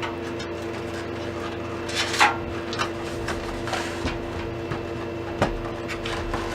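Rustling and light knocks from hands handling a box of PC case hardware, loudest about two seconds in, with a sharp knock a little past five seconds, over a steady background hum.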